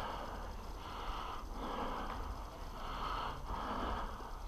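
A person breathing hard and rhythmically, each breath in or out a short rush of air.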